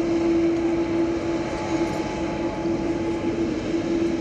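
Boeing 787-8 Dreamliner jet engines running steadily, a constant whine over a dense rumble of engine noise.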